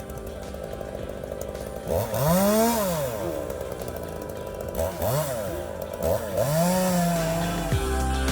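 Chainsaw engine revving up and down three times, the pitch rising and falling each time, then held briefly at a steady pitch. Background music plays underneath.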